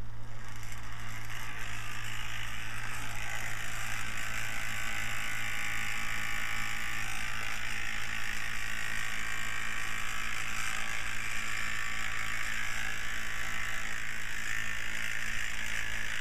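Small electric fan running steadily: a low motor hum under an even rush of air.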